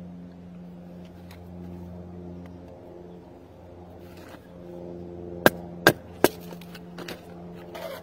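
Three quick sharp knocks, well under half a second apart, of a large fixed-blade knife chopping into wood, over a steady low hum.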